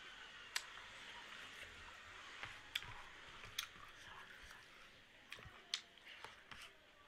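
Quiet eating by hand: chewing mouthfuls of rice and dal, with several sharp wet clicks and smacks scattered through, over a faint steady hiss.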